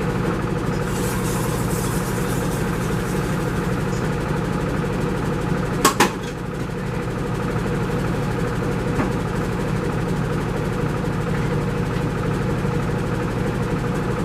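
A steady low mechanical hum, with two sharp clicks in quick succession about six seconds in.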